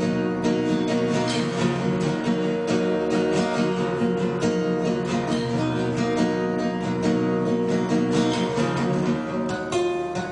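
Background music: strummed acoustic guitar playing steadily, with no voice over it.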